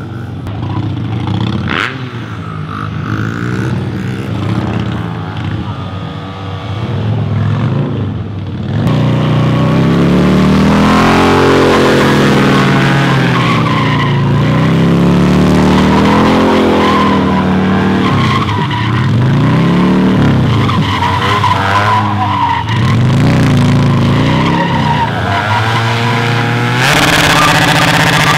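Stunt motorcycle engines revving up and down hard, with the rear tyre squealing in burnouts. The sound is quieter for the first several seconds, then much louder from about nine seconds in.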